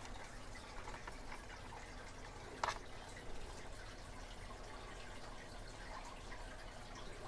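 Faint small clicks and taps of a lock's tiny pin being handled and set into place during reassembly, with one slightly sharper click near three seconds in.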